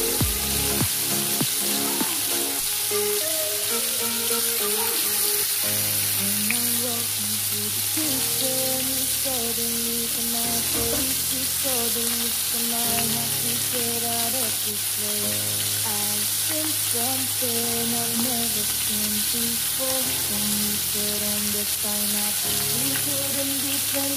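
Flour-coated tawilis frying in hot oil in a pan: a steady sizzle, with background music playing over it.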